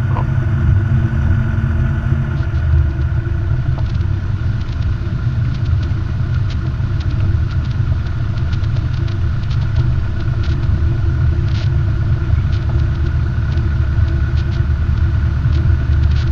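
Robin DR400's single piston engine running steadily, heard as a constant low drone inside the cockpit while the plane rolls along the ground, with a few faint clicks.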